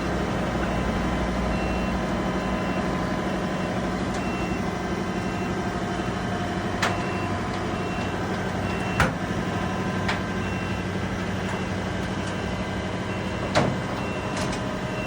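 Metal squeaking: short, high, even-pitched squeaks that repeat at an uneven pace of about one a second, over a steady mechanical hum. Four sharp clicks or knocks come in the second half, the one about nine seconds in the loudest.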